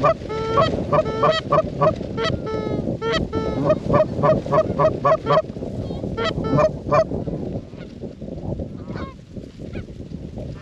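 Geese honking in a rapid series of calls, several a second, for about seven seconds, then fainter and sparser, over a low rumble of wind on the microphone.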